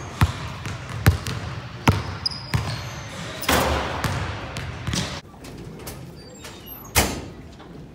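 Basketball dribbled on a gym's hardwood court, with four bounces about three-quarters of a second apart that echo in the big hall. After that comes a quieter stretch with one sharp knock near the end.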